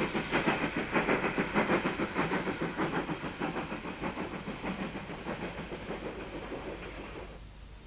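Steam locomotive running away into the distance: a rapid, even chuffing beat over a hiss, fading steadily, then dropping away sharply near the end.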